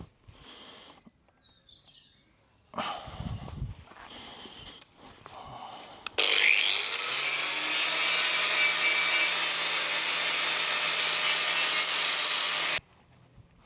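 A grinder starts about six seconds in with a rising whine and grinds the metal roof rack back for repainting, running steadily and loudly for about six seconds before cutting off abruptly. Before it, only faint knocks and handling sounds.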